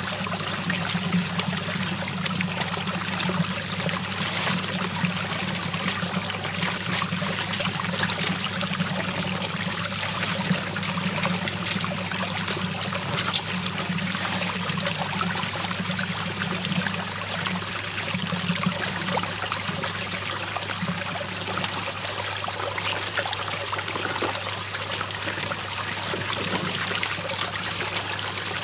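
Water swirling in a whirlpool and draining down a hole: a steady trickling, splashing wash of water, with a steady low hum underneath.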